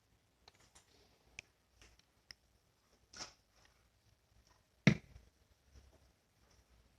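Slime being squished and pressed, giving scattered sticky clicks and small pops, with one sharp, louder pop about five seconds in.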